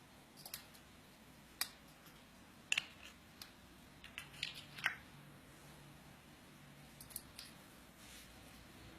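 A bird making scattered short, sharp clicks and chirp-like ticks, about a dozen in irregular clusters.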